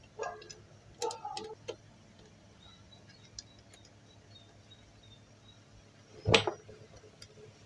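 Light metallic clicks and taps of a tool and bolts on an industrial sewing-machine head as its bolts are tightened, with one louder knock about six seconds in.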